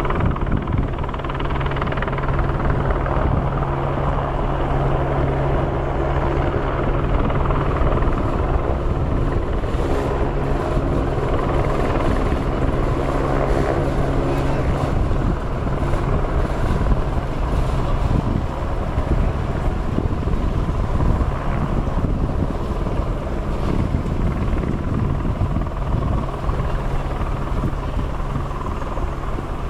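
The Big Chute marine railway's carriage being hauled up its rails out of the water with a boat aboard: a steady mechanical rumble with a low hum, the hum fading somewhat in the second half.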